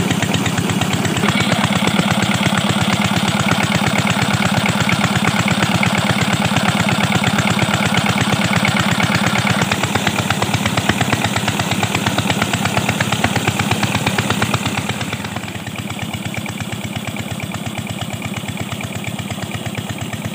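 Small Petter-type diesel engine running steadily at a tube well, its exhaust beating in a rapid, even rhythm, with the pump's outflow gushing and splashing into the water channel. The sound drops a little in level about three quarters of the way through.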